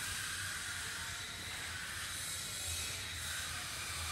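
Steady, even hiss of ambient noise with a faint low hum underneath and no distinct event.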